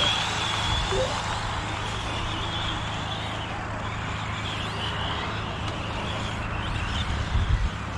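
Electric RC off-road cars racing: thin, high-pitched brushless motor whine that rises, falls and fades as the cars speed up and brake, over a steady low rumble.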